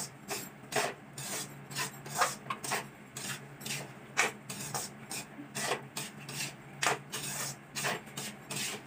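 Metal spatula scraping and stirring green peas in a metal kadhai, in repeated short strokes about two a second.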